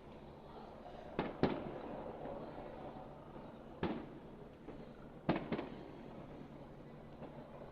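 Aerial firework shells bursting with sharp booms, five in all: a close pair about a second in, one near four seconds, and another close pair a little past five seconds. Each boom trails off with a rumbling tail.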